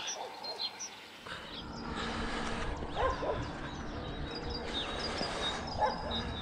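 Outdoor ambience with two short whining animal calls, about three seconds in and near the end, over faint high chirps and a steady rustling hiss.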